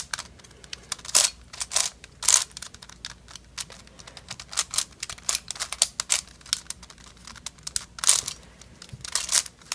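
Plastic Dreidel 3x3 twisty puzzle (Fengshi LimCube) being turned by hand while it is scrambled: irregular clicks and clacks of its layers turning, with a few louder snaps.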